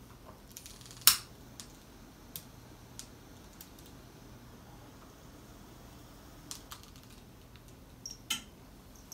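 Scattered sharp clicks and small knocks from a long-nosed utility lighter being picked up and clicked to light candles. The loudest click comes about a second in, and a close pair comes near the end.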